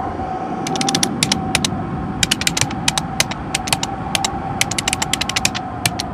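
Typhoon Yagi's storm wind and rain as a dense, steady rush with a steady tone running through it, and from about a second in many irregular sharp ticks and taps, like debris or drops striking a hard surface.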